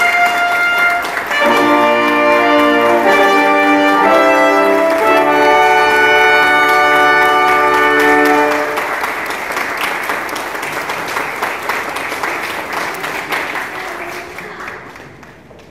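School brass band of trumpets and trombones playing a fanfare in loud, held chords, with a final chord cut off about halfway through. Applause follows and slowly dies away.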